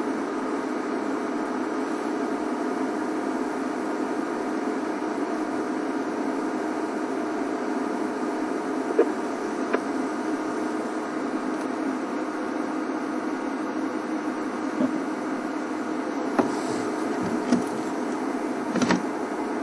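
Game-drive vehicle's engine idling steadily, with a few faint snaps from a young elephant feeding in dry grass close by.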